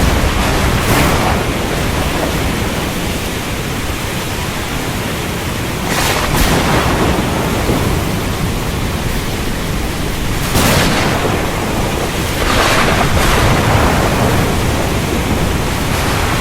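Heavy rainstorm with strong wind: a steady, dense rush of rain, with brief louder surges about six seconds in, again after ten seconds and around thirteen seconds, in the manner of thunder cracks or gusts.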